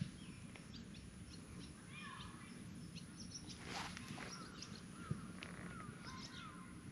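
Faint outdoor background: distant birds calling in short chirps, with a run of small repeated calls in the second half, over a low steady rumble.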